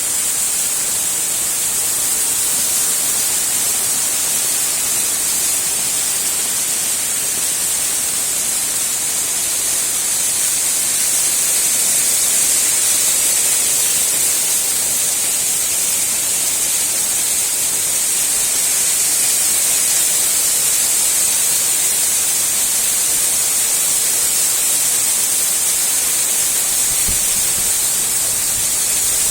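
Waterfall: falling water making a loud, steady rushing hiss.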